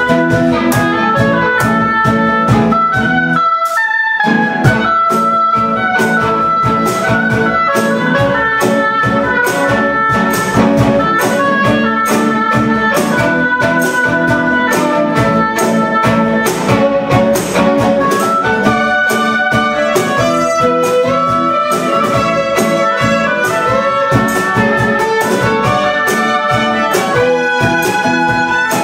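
Acoustic quartet of violin, classical guitar, oboe and cajon playing a tune together, the cajon keeping a steady beat. The lower parts drop out briefly about four seconds in.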